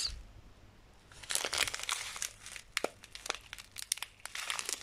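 Small zip-lock plastic bag of diamond-painting rhinestone drills crinkling as fingers squeeze and turn it, a run of short crackles starting about a second in.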